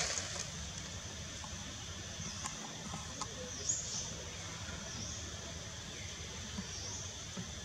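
Outdoor ambience: several short, high bird calls over a steady high hiss, with a few faint clicks.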